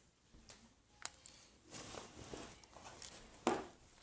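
Slime being handled: faint scattered squishes and small clicks, with one louder short squish about three and a half seconds in.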